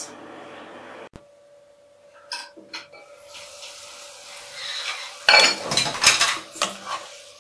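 Cookware clatter from a pan on the stove: a few light clinks a couple of seconds in, then a louder run of scraping and knocking about five seconds in. A faint steady hum runs underneath.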